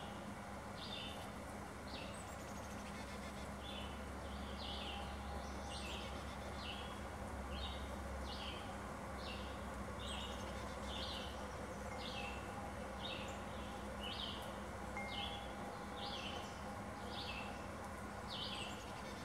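Carolina chickadee nestlings calling from inside the nest box: short, high notes, each dropping slightly in pitch, repeated about twice a second without a break.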